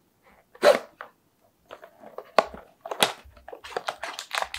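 Small cardboard blind box being handled and its top flaps pulled open by hand: a few separate taps and scrapes, then denser cardboard rustling near the end.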